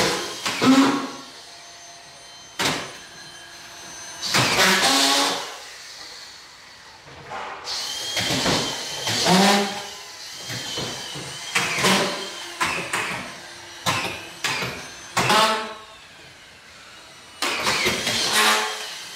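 Cordless collated drywall screw guns driving screws through plasterboard into a ceiling: repeated short motor whirs, each spinning up and cutting off as a screw seats, with a few sharp clicks between them.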